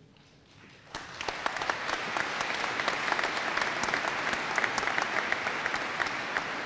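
Audience applause, beginning about a second in and building into steady clapping from many hands.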